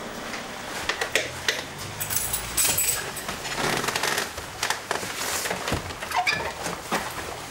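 Irregular clicks, knocks and rattles from a manual wheelchair and an open car door as a wheelchair user gets himself from the chair into the car, with a brief jangle about two seconds in.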